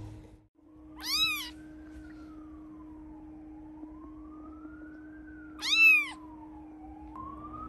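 Three-week-old British Shorthair kitten mewing twice, about five seconds apart: short, high-pitched mews that rise and fall. A faint tone wails slowly up and down behind them, over a steady low hum.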